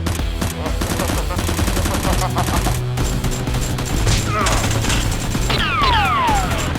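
Rapid, continuous gunfire over background music with a steady low line. Near the end, several falling whistling tones sweep down in pitch.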